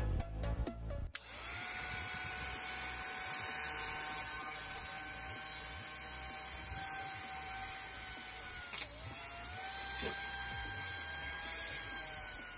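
Homemade drill built on a 775 DC motor, switched on about a second in and running with a steady whine. About two-thirds of the way through, its pitch briefly sags and recovers as the bit bores into a PVC strip.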